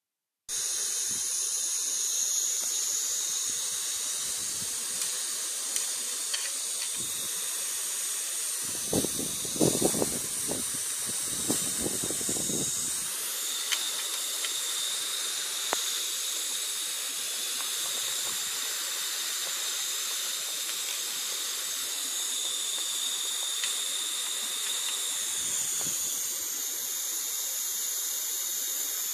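Coal-fired 16 mm scale live steam model locomotive (Edenhouse 'Ralph') letting off steam in a steady, high, even hiss, with a few faint clicks and a stretch of low rumbling about nine to thirteen seconds in.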